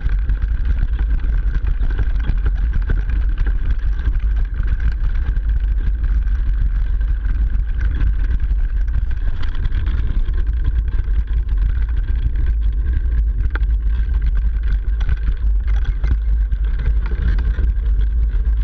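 Mountain bike riding noise carried through a direct-mounted GoPro: the 29er's tyres crunching over snow and leaf litter and the suspension working, heard as a loud, steady rumble with many small clicks and knocks.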